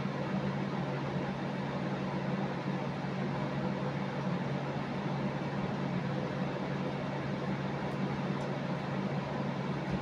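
Steady electrical motor hum with a constant even hiss, unchanging throughout, as from a running household appliance.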